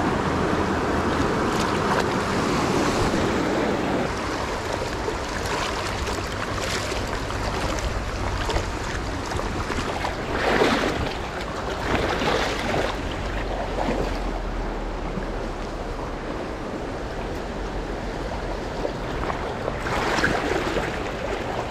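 Steady rush of a swift river running high over rapids, with a few brief louder sounds about ten, twelve and twenty seconds in.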